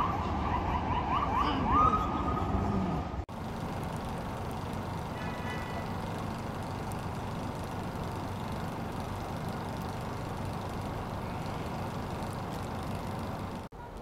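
A street siren yelping in quick rising sweeps, then holding one tone, until it is cut off about three seconds in. Then a steady hiss of outdoor street noise follows, with a faint brief beep around five seconds in.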